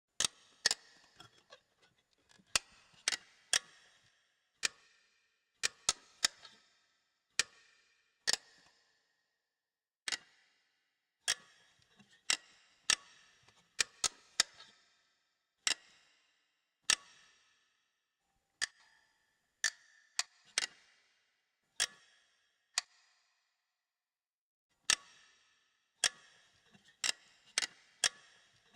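Metal gears of a wind-up toy clicking and clacking: sharp single metallic clicks, spaced irregularly about a second apart and often in quick groups of two or three, each with a short ringing tail.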